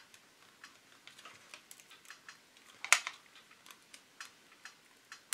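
Small scattered clicks and ticks of a hobby blade working against plastic as it pries a glued clear-plastic windshield away from the roof of a plastic model car body. There is one sharper click about three seconds in.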